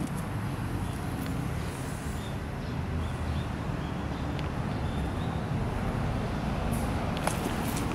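Steady outdoor background rumble and hiss, with a few faint short high chirps about three seconds in and faint ticks near the end.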